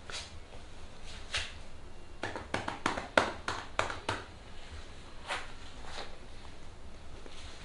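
Hands patting and slapping on a person's arm during a massage. A few single sharp pats come first, then a quick run of about eight, roughly four a second, in the middle, and two more single pats near the end.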